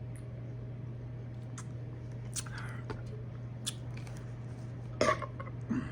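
Mouth sounds of eating shellfish: a few faint wet clicks and smacks, then about five seconds in a short, louder throaty sound from the eater, dropping in pitch at its end. A steady low hum runs underneath.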